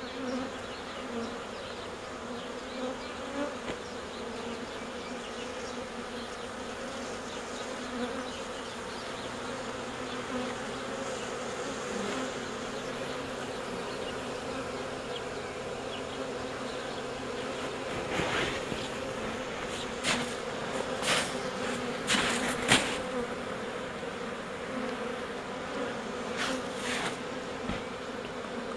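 Many honeybees buzzing in a steady hum around an overwintered hive wrapped in tar paper; the colonies have come through the winter well. Several short crackles sound over the hum in the last third.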